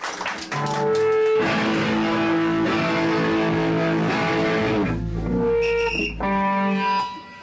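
Amplified electric guitar playing a few long, ringing chords, each held for a second or more before changing, with a low hum under one of them near the end.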